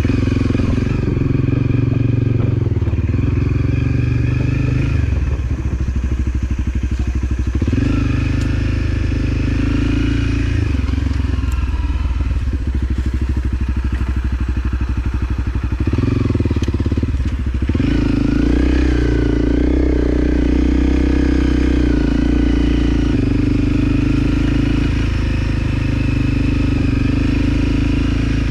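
Off-road motorcycle engine running as it rides a trail, its pitch rising and falling repeatedly with the throttle.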